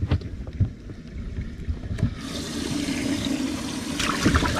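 Water running or pouring steadily for about three seconds, starting about two seconds in, with a low hum under it. A few knocks come before it and near the end.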